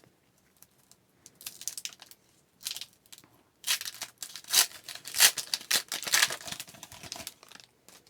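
Foil wrapper of a trading-card pack being torn open and crinkled by hand: a few short rustles, then a longer stretch of crackly crinkling from about four seconds in.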